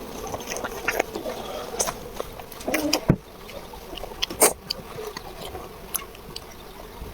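A handful of light clicks and knocks at uneven intervals over a faint steady background.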